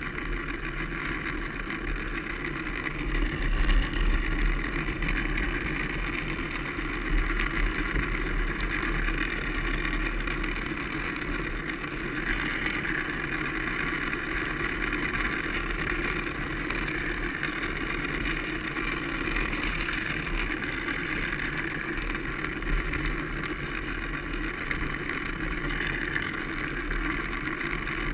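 Drift trike coasting downhill on wet asphalt: a steady hiss of the wheels rolling on the wet road, with wind rumbling on the camera's microphone.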